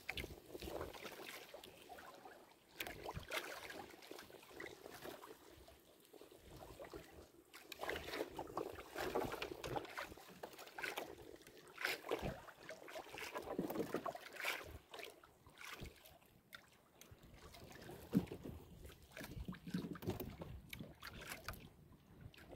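Choppy water slapping the hull of a small wooden outrigger boat, with irregular knocks and clatter as a gill net and its floats are hauled aboard and worked by hand.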